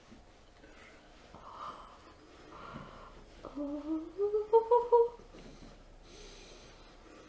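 A woman moaning with her mouth closed, the pitch climbing in a few short pulses for about a second and a half midway through. Soft breaths come before it.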